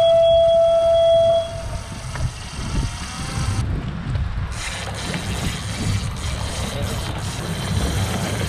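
A loud steady electronic beep for about the first second, then a continuous low rumble of the boat's motor and wind over open water.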